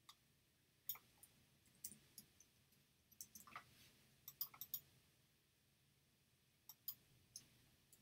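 Faint, scattered clicks of computer input as an image-editing dialog is opened and its sliders are dragged. The clicks come in small clusters: about a second in, between three and five seconds in, and near seven seconds.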